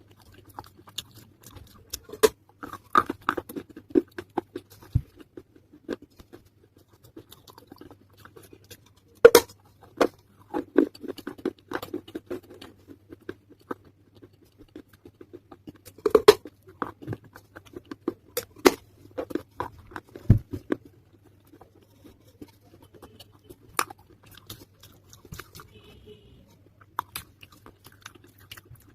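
Pieces of a wet earthen clay pot (matka) being bitten and chewed close to the microphone: irregular sharp crunches with softer wet chewing between them. The loudest snapping bites come about 9 and 16 seconds in.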